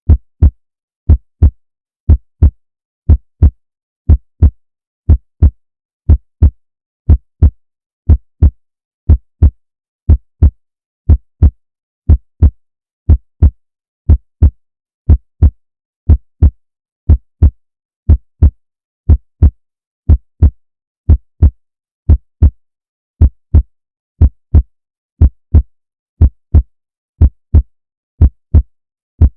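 Human heartbeat beating steadily at about one beat a second, each beat a lub-dub double thump, deep and low.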